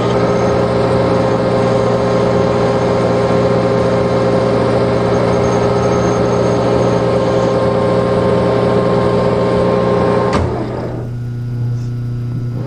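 Colchester 15x48 metal lathe running: a steady motor hum with a busy mechanical whirr over it, which stops with a click about ten seconds in, leaving only the hum.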